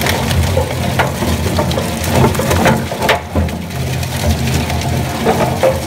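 Industrial shaft shredder's cutter discs chewing thick rubber fittings: irregular crunches and snaps over the steady low hum of the running drive, with a brief lull about three seconds in.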